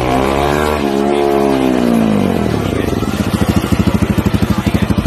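Bajaj Pulsar NS200 single-cylinder engine and exhaust: one rev that climbs and drops back in the first two seconds, then settles into a loud, fast, even putting idle.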